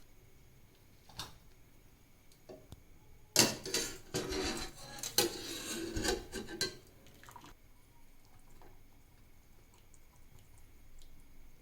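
A metal strainer and kitchen utensils clattering and knocking against a pot or bowl as boiled mushrooms are scooped out. There are a couple of single clicks first, then a burst of clatter lasting about three seconds in the middle, then only faint ticks.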